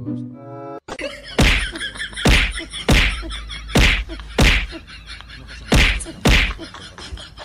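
A tennis ball bounced on a hard court before a serve, heard through a TV's speakers: seven sharp thwacks about half a second to a second apart.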